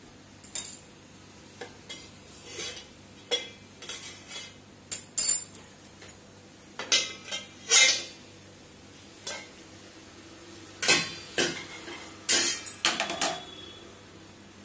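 Stainless steel lid clinking and scraping against the rim of a frying pan as it is handled and lifted off: a run of irregular metal clatters, loudest in the middle and near the end.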